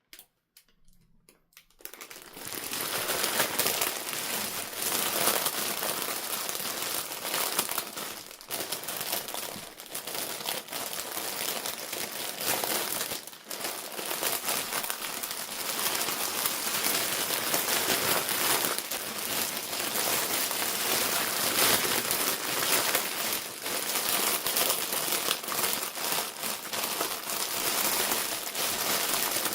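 Toy packaging crinkling and rustling continuously as it is handled and unwrapped, starting about two seconds in.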